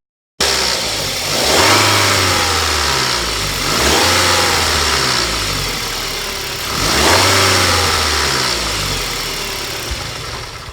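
Nissan QR25DE 2.5-litre four-cylinder engine running and revved three times, a couple of seconds apart, each rev rising and then falling back toward idle. It is run so that the timing chain area can be heard.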